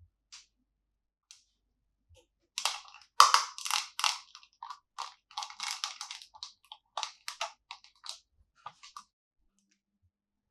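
Plastic being handled: a dense run of short, irregular crinkles and crackles that starts a few seconds in and thins out near the end.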